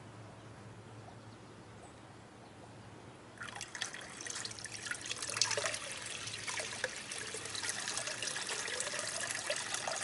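Water starts spilling over the lip of a DIY waterfall weir, a plastic bin, and splashing into a container pond about three and a half seconds in. It is a trickling splash that grows louder as the flow builds.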